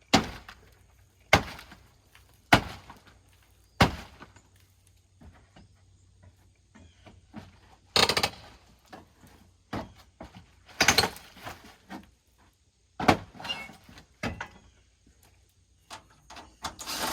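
A series of sharp knocks and bangs: four single hits about a second and a quarter apart, then longer rattling clatters now and then.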